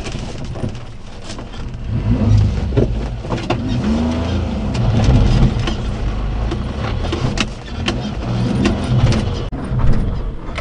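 Daihatsu Hijet Climber mini-truck's 660cc three-cylinder engine running under load, heard from inside the cab, revving up several times as the truck crawls over rough ground. Scattered knocks and clicks sound throughout.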